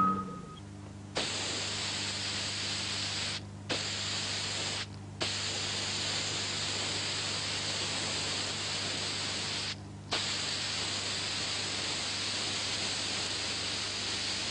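Aerosol spray-paint can hissing in long bursts, with short breaks about three and a half, five and ten seconds in, over a low steady hum.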